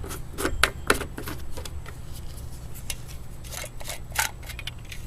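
Irregular sharp clicks and light knocks of hands handling parts of a two-stage snowblower, over a low steady hum; the clicks bunch in the first second and again near the end.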